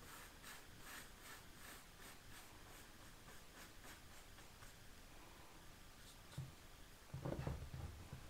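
Paintbrush brushing paint onto a wooden door's glazing bars: faint, scratchy strokes about twice a second that fade out about halfway through. Near the end there is a low bump, louder than the brushing.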